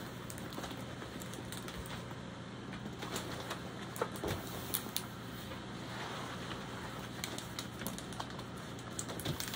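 Rolled diamond painting canvas being unrolled and flattened by hand, its clear plastic cover sheet crackling and rustling in scattered small clicks, over a steady low hum.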